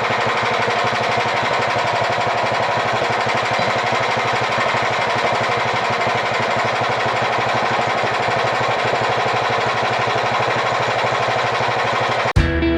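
An engine running steadily with a fast, even pulse; about twelve seconds in it cuts off abruptly and guitar music begins.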